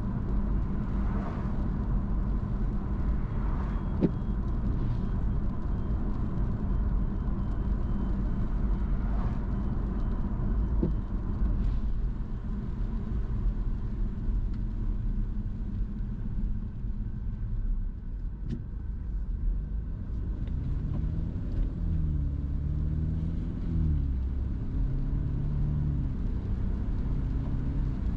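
Car driving on the road: a steady low engine and tyre rumble. About two-thirds of the way through, an engine note rises and falls a few times.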